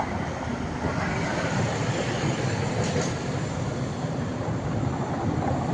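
A tram running on its rails nearby, a steady rolling noise with a low rumble.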